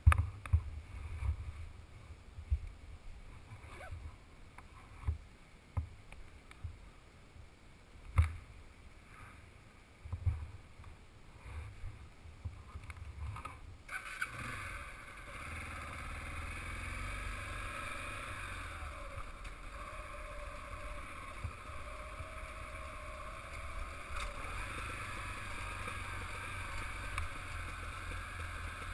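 Motorcycle riding down a rough dirt track, heard through a helmet-mounted camera: irregular low thumps and knocks from bumps and wind on the microphone, then about halfway through a sudden change to a steady rushing noise of the ride that lasts to the end.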